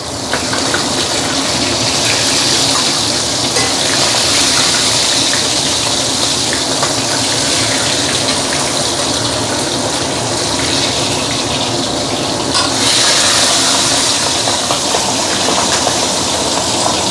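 Hot oil sizzling steadily in a stainless steel wok as a whole Chinese pomfret deep-fries and is turned over with a metal spatula. The sizzle swells for a couple of seconds about three-quarters of the way in.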